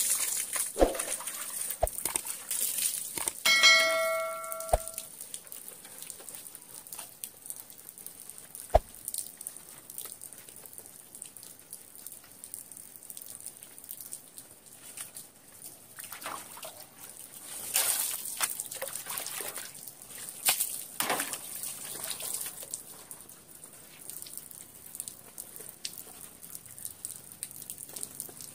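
Water splashing and trickling as a bather pours it from a bowl over herself, with scattered clicks and splashes and heavier bursts of splashing about two-thirds of the way in. A short bell-like chime rings about four seconds in.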